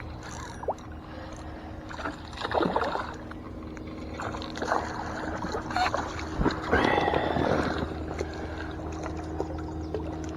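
Water splashing and sloshing at a boat in several irregular bursts, the strongest about two and a half and seven seconds in, over a steady low hum.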